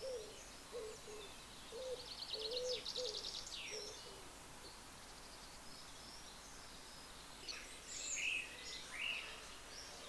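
Wild birds singing: a run of short low cooing notes over the first few seconds, a fast high trill a couple of seconds in, and a few high chirps near the end, over faint outdoor background hiss.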